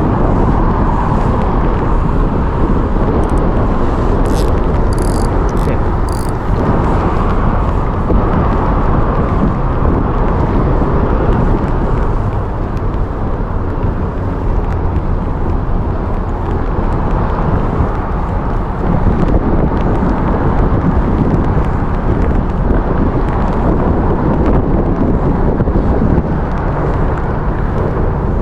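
Steady, loud wind buffeting the microphone over the rushing flow of the river. About five seconds in there are a few brief high-pitched chirps.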